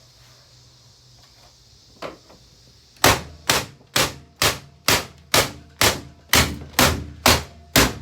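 A Hoover vacuum cleaner being struck in a steady run of about eleven sharp blows, roughly two a second, starting about three seconds in after a single knock, over a faint steady hum.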